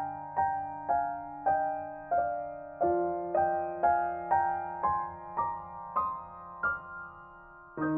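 Background piano music: a gentle melody of single notes, about two a second, over held low notes.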